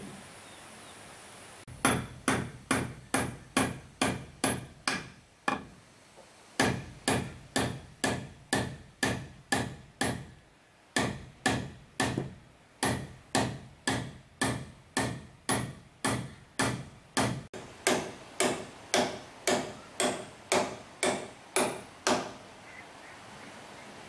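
A hammer driving nails into wood, struck steadily about three times a second in three runs with short pauses between them. Each blow rings briefly.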